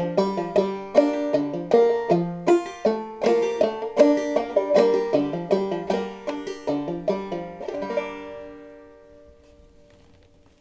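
Five-string banjo played clawhammer style in G minor tuning (gDGA#D), a quick run of plucked notes with a steady beat. About eight seconds in it ends on a final chord that rings and fades away.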